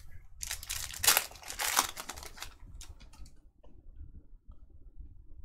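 A trading-card pack wrapper being torn open and crinkled, a crackling rip that is loudest about a second in and dies away after two or three seconds, followed by a few faint clicks.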